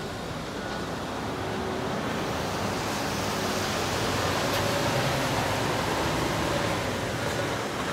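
Scania P 400 truck approaching slowly, its diesel engine running under a steady rushing noise that gets somewhat louder midway.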